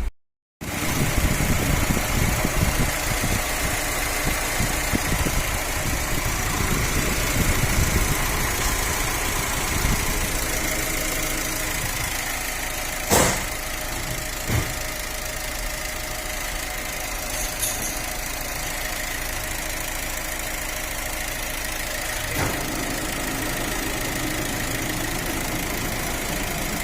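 Fiat Uno 1.4 Evo Fire four-cylinder engine idling steadily, with a few sharp clicks, the loudest about halfway through.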